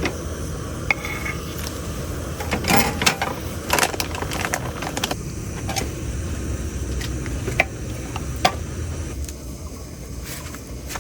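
Scattered clinks and clatters of small hard objects being handled, busiest in the first half, over a steady low rumble.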